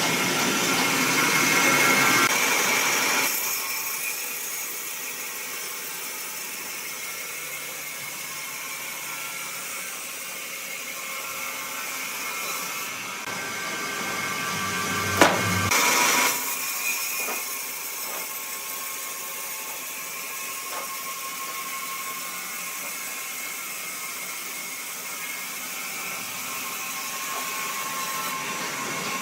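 Woodworking machinery running with a steady whine of several tones. The sound changes abruptly about 3 seconds in and again about 16 seconds in, with one sharp click about 15 seconds in.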